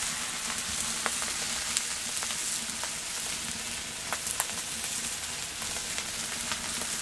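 Stir-fry of moose meat, mushrooms and vegetables sizzling steadily in a pan over a wood fire, nearly cooked, with a few sharp pops and crackles.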